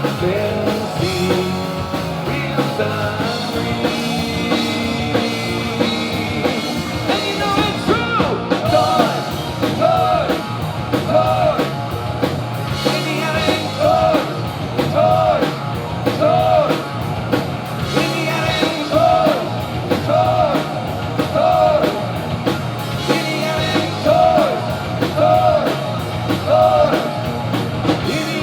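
Rock trio playing a fast rock song with drum kit and singing; from about eight seconds in, a short riff figure repeats about once a second.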